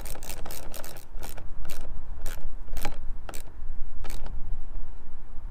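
Socket ratchet clicking as a bolt is tightened down: a quick run of clicks with each back-swing of the handle, slowing to single, spaced clicks about a second in.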